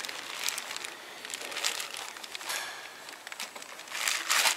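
Clear plastic bag crinkling and rustling in irregular bursts as an air compressor is unwrapped and handled in it, the loudest crinkle near the end.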